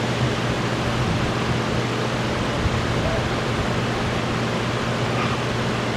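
Steady hiss with a low, even hum beneath it: constant background noise on the audio feed.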